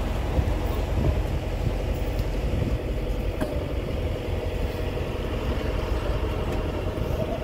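Engine of a small harbor car ferry running steadily under way, a low rumble, with a faint steady whine joining in about three seconds in.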